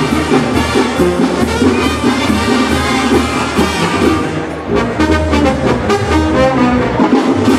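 Banda-style brass music, with trumpets and trombones over a steady pulsing bass line.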